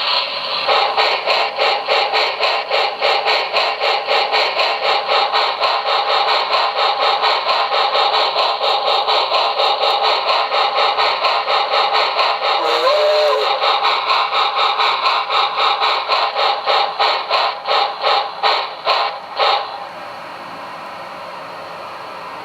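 QSI Maxx Traxx small-steam sound effect played through its speaker: a steam locomotive chuffing steadily at about four chuffs a second, with a short tone about halfway through. The chuffs slow and stop near the end, leaving a steady quieter hiss.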